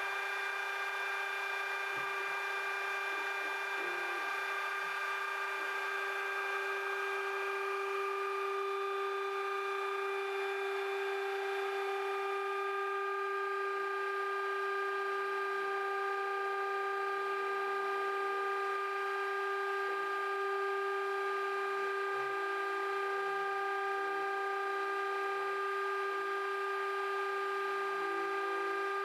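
CNC router spindle running with a steady high-pitched whine as it mills an acrylic moulding-knife template. Faint, shifting low tones sit underneath while the cutting head moves.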